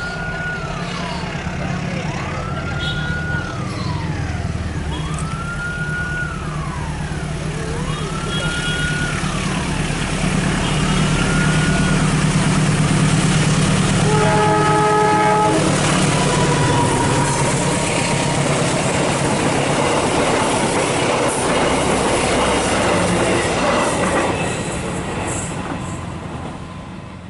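A train running past, its rumble building to the loudest around the middle, while a wailing warning siren sweeps up and down about every two seconds through the first half. About fourteen seconds in, the train sounds its horn in one blast of about a second and a half.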